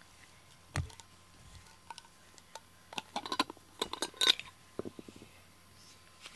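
Rubber grooming brush rasping through a cat's thick, shedding coat in short scratchy strokes, bunched together about three to four and a half seconds in. A single soft knock comes just under a second in.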